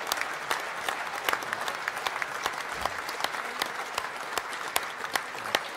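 Conference audience applauding a speech: steady applause from a large hall audience, dense claps with some standing out sharply.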